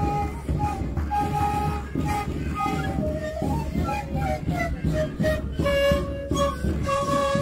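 Andean folk music for the kalamachu dance: flutes play a melody of held, stepping notes over the steady beat of large drums carried by the dancers. The tune drops to lower notes about halfway through.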